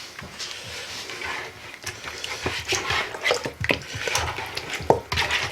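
Chicken drumsticks being worked by hand in marinade in a mixing bowl: irregular wet squelches and small clicks against the bowl, getting busier after about two seconds.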